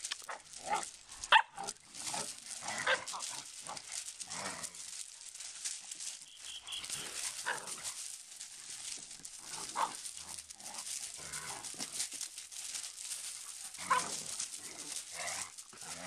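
Puppies play-fighting, giving short barks and yaps at irregular intervals throughout.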